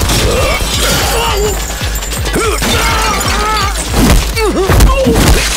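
Action-film fight soundtrack: a loud background score layered with smashing and shattering impact effects, the loudest hit a little before the end.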